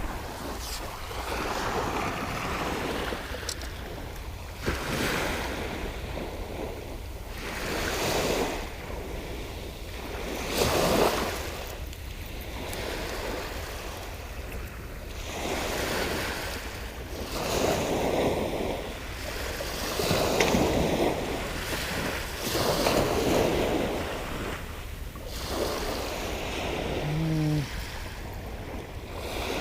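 Sea waves washing in one after another, each surge swelling and fading every few seconds, over a low steady wind rumble on the microphone.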